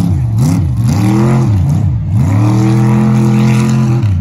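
Race truck's engine revving hard with the throttle opened and lifted in turn: two short climbs in pitch that fall away, then a longer pull held at high revs for over a second before dropping off near the end.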